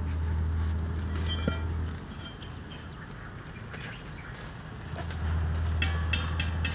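A bird gives two short rising whistled calls, about two and a half seconds apart, over a low steady hum that fades out about two seconds in and comes back about five seconds in.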